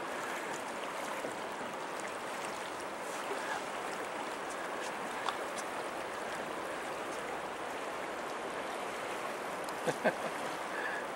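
Choppy river water lapping and splashing against a boat's hull, a steady rushing noise, with a couple of short, sharper sounds about ten seconds in.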